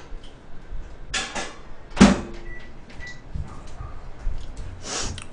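Microwave oven in use: a loud knock about two seconds in, like its door shutting, followed by two short high electronic beeps about half a second apart, with some brief rustling around it.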